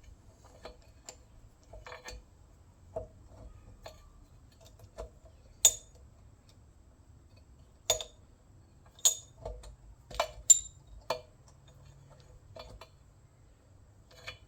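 Metal tools clicking and clinking against a Tecumseh lawnmower engine while prying at a stuck part, with light irregular clicks and several sharper ringing metal clinks between about six and eleven seconds in.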